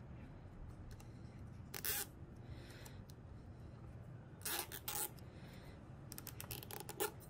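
Thin hour-meter sensor wire being handled and wrapped around a sheathed cable: several short scratchy rustles, a cluster of them near the end, over a low steady hum.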